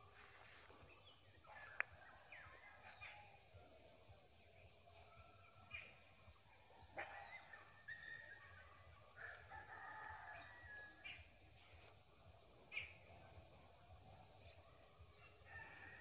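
Rooster crowing faintly, with a drawn-out crow in the middle and short chirps of other birds around it. A single sharp click about two seconds in is the loudest sound.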